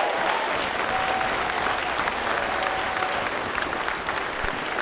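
A crowd of about 400 applauding steadily, with a few voices calling out over the clapping.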